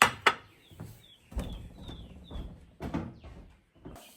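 Dishes and bowls clinking and knocking as they are set down, with a small bird giving a run of about five short falling chirps in the background.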